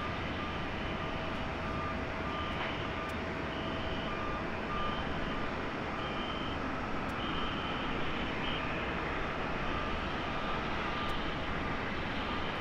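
Rolls-Royce Trent XWB engines of an Airbus A350-900 on final approach, a steady distant jet rumble, with a faint high beeping repeating over it.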